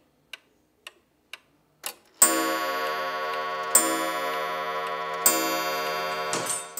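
Pendulum wall clock ticking about twice a second, then from about two seconds in striking with a loud ringing chime, struck three times about a second and a half apart.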